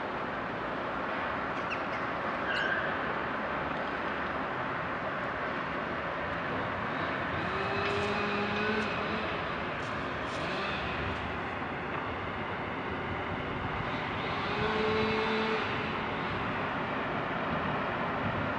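Steady distant engine noise, with a brief whine twice, about eight and fifteen seconds in.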